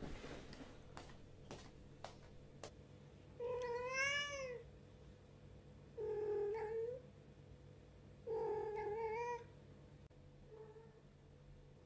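Domestic cat meowing: three drawn-out meows a couple of seconds apart, then a faint short one, after a few light clicks.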